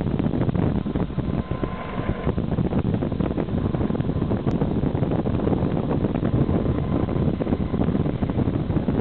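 Wind buffeting the microphone on an open ship's deck, over the steady low rumble of the moving ship.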